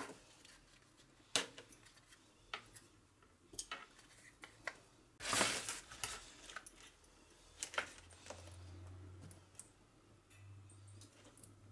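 Handling sounds on a rubber workbench mat: scattered light clicks and knocks of a plastic battery-pack case and a clamp multimeter with test-probe leads being set down and moved. A longer scraping rustle about five seconds in is the loudest sound.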